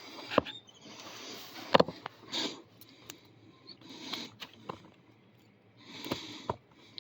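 Lock picking on a Hyper Tough 40 mm padlock: scattered small clicks and light scraping as a pick and tension tool work the pin tumblers, with the sharpest click about two seconds in. The pins keep slipping, so the lock does not open.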